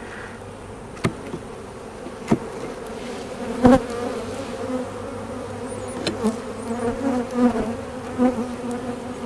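Honey bees humming steadily around an open hive, with single bees buzzing close past with a wavering pitch. A few sharp clicks are heard, the loudest a little under four seconds in.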